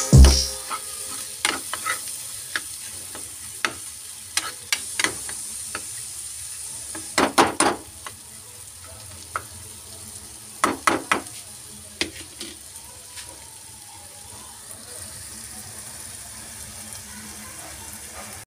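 Steel ladle stirring boiled-egg masala in a metal kadai: irregular scrapes and clinks of the ladle against the pan, thickest about a third of the way through and again past halfway, over a steady sizzle from the hot pan.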